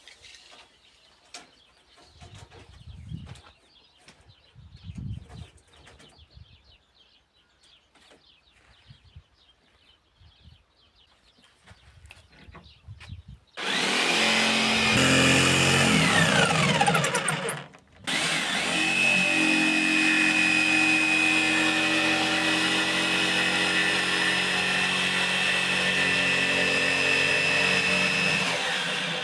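A handheld power tool running steadily at full speed. It cuts out about four seconds after starting and starts again half a second later. Before it starts there are only faint low knocks.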